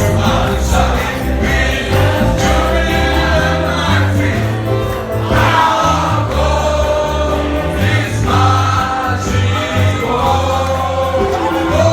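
Choir singing a gospel praise song over instrumental backing with a pulsing bass line.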